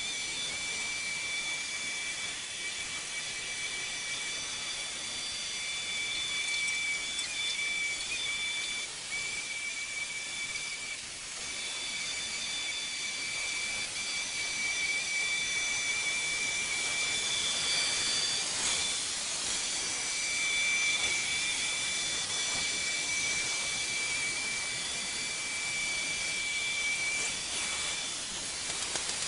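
Neato XV-12 robotic vacuum running, its suction fan giving a steady airy hiss with a high-pitched whine that breaks off briefly a few times.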